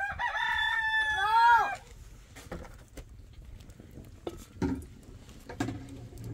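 A rooster crowing once: one call lasting under two seconds, held level and then ending on a note that rises and falls. A few faint knocks follow.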